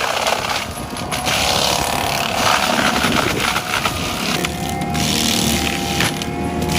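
Heavy machinery running, engine noise mixed with a dense cutting and grinding noise that rises and falls in level.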